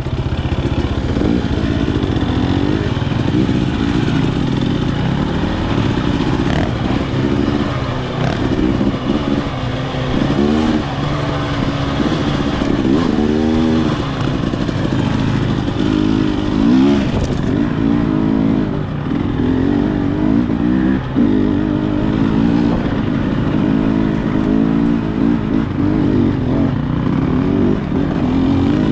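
2023 TX300 two-stroke dirt bike engine being ridden, its pitch rising and falling again and again as the throttle is opened and closed.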